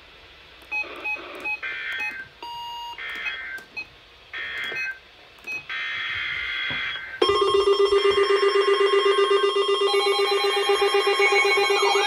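NOAA weather radios receiving an emergency alert: several short bursts of SAME data header tones with a few beeps between them, then about seven seconds in the radios' alert tone starts, loud and steady.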